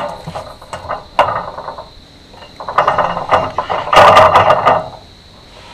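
Clothing and gear rustling and clicking close to the microphone in several bursts as a person shifts and moves his arms, the loudest about four seconds in.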